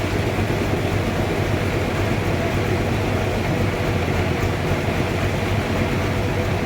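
Sawmill machinery running steadily during log sawing, a constant low hum under an even mechanical noise.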